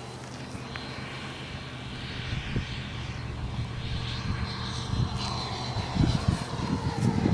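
Radio-controlled model airplane flying past overhead, its engine note falling in pitch as it goes by, with wind buffeting the microphone near the end.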